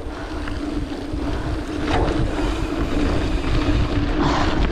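Wind buffeting the microphone and tyre rumble from a mountain bike descending a dirt forest road at speed, with a steady buzzing hum underneath.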